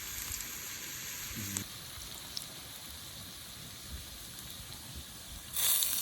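Food sizzling in a pan over a campfire: a steady hiss that grows much louder near the end.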